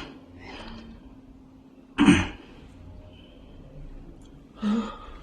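A person coughing after surgery: one sharp, loud cough about two seconds in and a second, shorter cough near the end.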